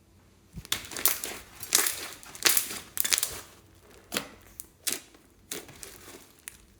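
Slime being pressed and stretched by hand, making a run of irregular crackling squishes.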